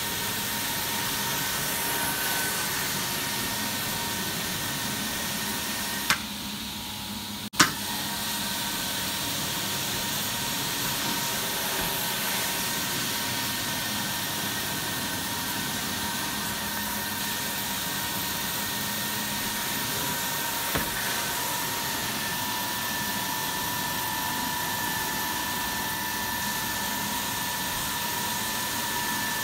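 Truck-mounted carpet extractor's vacuum pulling air and water through a Zipper carpet wand as it glides over carpet: a steady rushing suction with a high whistle. About six seconds in it cuts out briefly, then returns with a sharp click.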